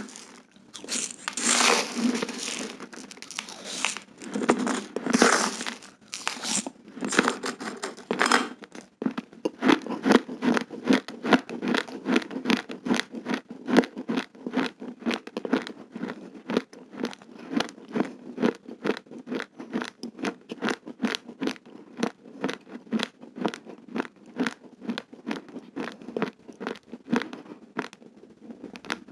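Close-miked chewing of raw uncooked rice grains: irregular, louder crunching for the first several seconds, then steady crisp crunches about two a second as the hard grains are ground between the teeth.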